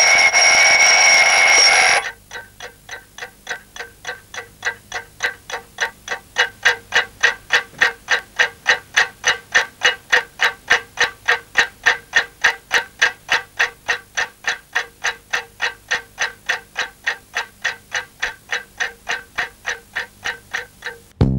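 Trophy alarm clock's bell ringing loudly, stopping about two seconds in, then the clock ticking steadily, about four ticks a second. Guitar music starts just at the end.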